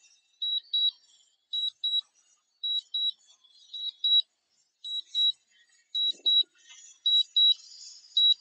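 Drone remote controller sounding its low-battery return-to-home warning: high double beeps, about one pair a second.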